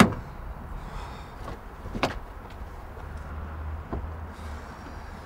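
Car door and boot lid being shut: a loud thud at the start, then two lighter thuds about two and four seconds in, over a low hum.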